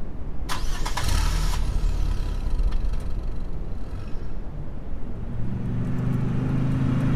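Car engine started: the starter cranks for about a second, then the engine catches and runs with a low rumble. A low steady hum comes in near the end.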